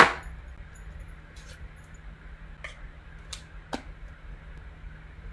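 A few faint, sharp clicks and taps from stamping tools being handled on a craft table, spread out over a few seconds, over a steady low hum.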